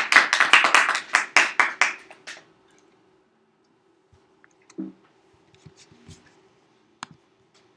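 A small group of people clapping, dying away about two seconds in. After it come a few faint knocks and clicks.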